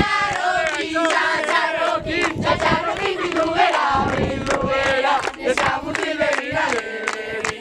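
A large group of young voices chanting a song together, with hand clapping.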